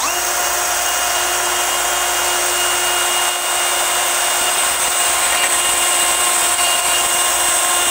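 DeWalt cordless drill running flat out in its low-speed setting, boring an oiled pilot hole through steel: a steady whine at one constant pitch that starts suddenly.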